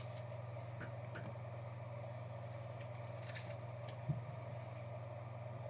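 Steady low hum of the room with faint light clicks and rustles of trading cards being handled, and one soft knock about four seconds in.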